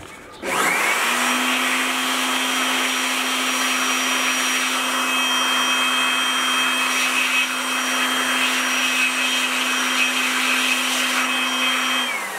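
Handheld electric air blower switched on about half a second in, spinning up to a steady motor hum and whine over a rush of air, blowing toner dust off a laser printer cartridge's magnet roller. Near the end it is switched off and winds down, its pitch falling.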